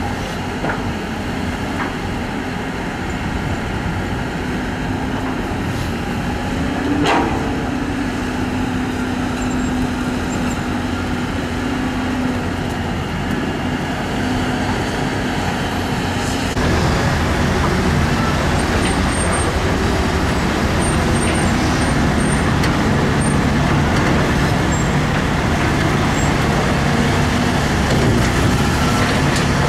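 Diesel engines of hydraulic excavators running steadily under working load, with a brief sharp sound about seven seconds in. The sound gets louder about halfway through.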